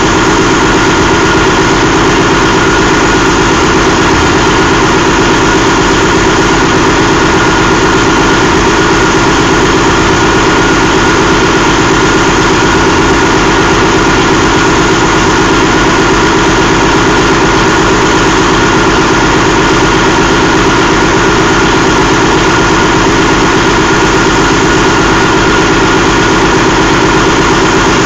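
2013 Paccar MX-13 12.9-litre inline-six diesel engine idling steadily, with a constant thin high whine over the diesel note.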